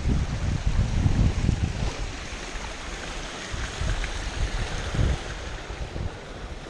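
Rushing water of a rocky mountain beck below a waterfall, a steady hiss. Wind buffets the microphone, heaviest in the first two seconds and again about five seconds in.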